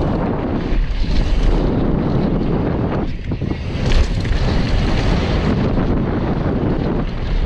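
Wind buffeting the microphone of a camera on a mountain bike descending a dirt trail at speed, mixed with tyre noise and rattle from the bike; a sharper knock about four seconds in.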